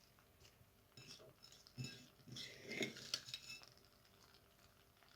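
Faint rustling and a few light clicks of sliced onion being spread by hand over vegetables in a tagine, busiest in the middle, then dying away.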